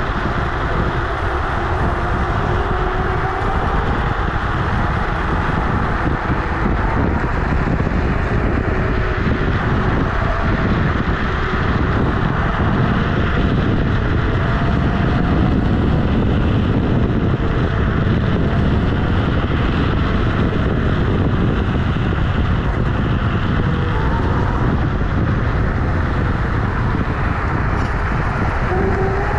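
Steady rush of wind and tyre rumble from a Kugoo G-Booster electric scooter riding on an asphalt road, picked up by a camera mounted low beside the knobbly-tyred wheel.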